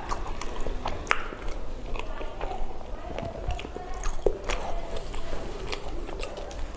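Close-miked eating of pav bhaji, soft bread rolls with mashed vegetable curry: biting and chewing with many short, wet mouth clicks and smacks.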